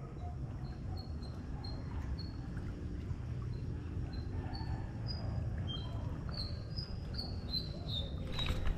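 A bird calling a long run of short, high whistled notes, about two or three a second, the notes stepping up in pitch and then back down. A steady low rumble runs underneath, and a short rustling noise comes near the end.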